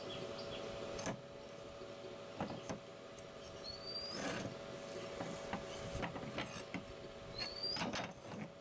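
A rusty hand sickle with a wooden handle handled on a wooden workbench: a handful of knocks and scrapes of metal and wood on the boards, over a steady hum. Twice a short rising chirp sounds.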